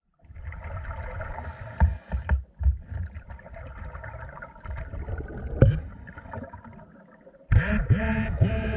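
Underwater sound around a scuba diver: a low rumble of water with a few sharp knocks, then near the end a sudden louder burst of bubbles as the diver exhales through the regulator.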